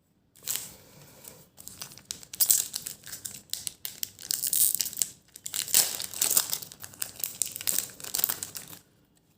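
A Slam Attax Reloaded trading-card packet being torn open and its wrapper crumpled by hand, crinkling and crackling on and off. The sound stops a little before the end.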